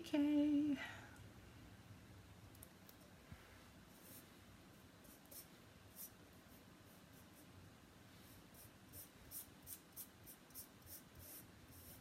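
A run of faint, short scratchy rubbing strokes, coming quicker in the latter half, as an adhesive silk screen is pressed and smoothed onto a mug.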